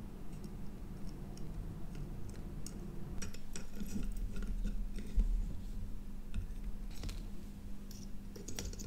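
Scattered light clicks and taps from handling a soldering iron and a small circuit board held in a helping-hands clamp on a workbench, over a faint steady low hum.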